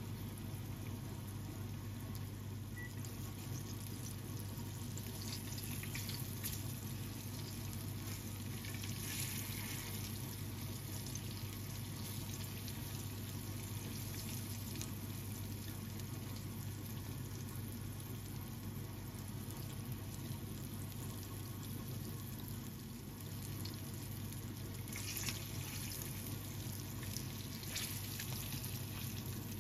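Flour-coated chicken drumsticks frying in shallow oil in a frying pan: a steady sizzle and crackle that swells briefly a few times. Light clicks of metal tongs turning the pieces come near the end.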